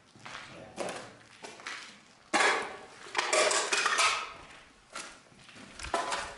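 Footsteps with knocks and clatters of hard objects. The loudest clatter comes about two and a half seconds in, with a cluster of clattering between three and four seconds, some of it ringing briefly.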